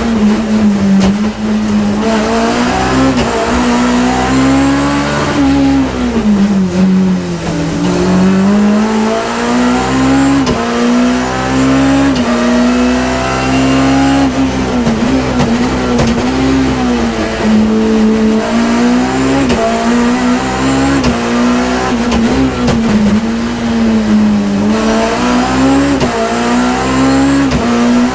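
BMW E30 M3's four-cylinder engine heard from inside the cabin at high revs under full throttle. Its pitch climbs through the gears and falls back on each shift or lift, with a longer, deeper drop a quarter of the way in as the car slows for a corner.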